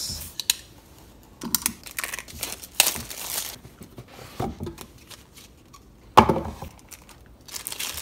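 Packaging being opened by hand: scattered rustling, crinkling and tearing, with a louder burst of it about six seconds in.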